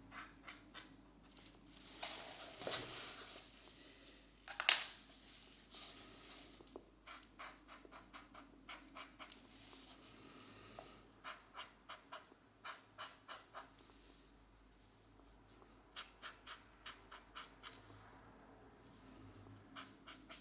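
Felt-tip markers scratching across paper in quick back-and-forth colouring strokes, in runs of about three or four strokes a second. A sharp louder click sounds about four and a half seconds in.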